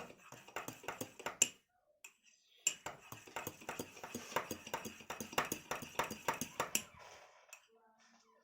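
A metal spoon stirring a drink in a cup, clinking against its side about four or five times a second, with a pause of about a second near the start.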